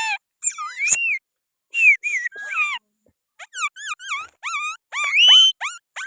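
Green parrot calling on a hand: a string of short squeaky, whistled calls that bend up and down in pitch. After a brief pause about halfway through come faster wavering chattering calls, ending in a longer, louder high note.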